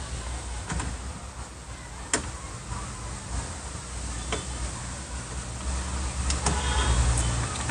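A few separate clicks and knocks as car door parts are handled and fitted back in place, over a steady low rumble that grows slightly louder near the end.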